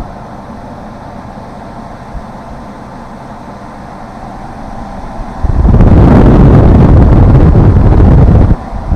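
ZOKOP portable air conditioner running on cool with a steady whoosh of airflow. About five and a half seconds in, its outlet air blows straight across the microphone, turning into loud wind buffeting that breaks off briefly near the end.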